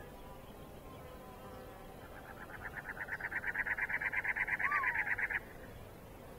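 A rapid pulsing animal trill, about ten pulses a second, swells over a second or so, holds, and stops abruptly about five seconds in. A short whistled chirp sounds near its end, over a faint steady background.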